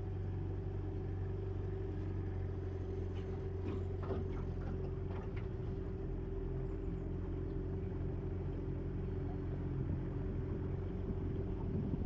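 Boat motor running steadily at an even speed, with a constant low hum.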